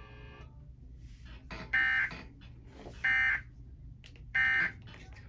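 Emergency Alert System digital data tones sounding in three short buzzing bursts about 1.3 s apart. Coming right after the spoken warning, these are the end-of-message code that closes the alert.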